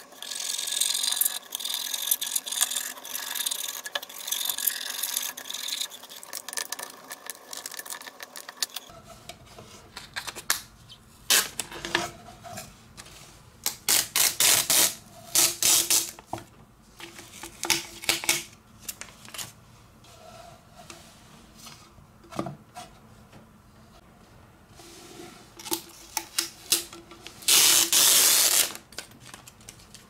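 A blue plastic spatula rubbing aluminium tape down onto the clear plastic dust case of a Makita cyclone vacuum attachment, a continuous rasping scrape. About nine seconds in it gives way to scattered short scrapes and rustles as the taped case is handled, with one longer, louder rustle near the end.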